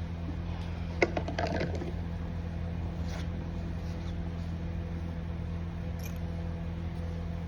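A steady low hum with a faint hiss, broken by a few brief clicks about a second in.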